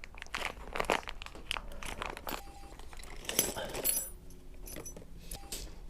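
Small metal spacers and bolts clinking and rattling together as they are handled, with some crinkly rustling, in a string of irregular short clicks.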